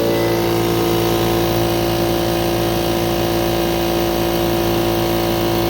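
Campbell Hausfeld 8-gallon portable air compressor running steadily, its electric motor and oil-lubricated piston pump building pressure in the tank.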